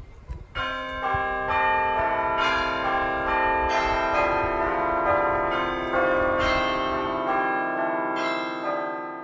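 Bells struck in a slow sequence of notes, each note ringing on under the next. The notes thin out and die away over the last couple of seconds.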